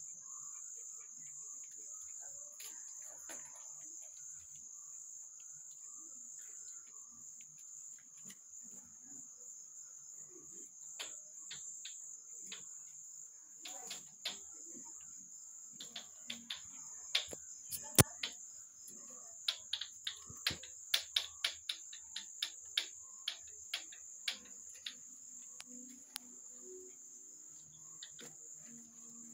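Crickets chirring steadily in a continuous high band. Through the middle and later part there is a run of sharp clicks and knocks, loudest and most frequent a little past halfway.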